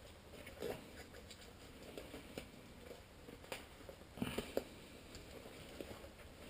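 Faint, scattered rustling and light taps of drysuit material being handled and pressed as a glued replacement foot is fitted, with a brief cluster of louder rustles about four seconds in.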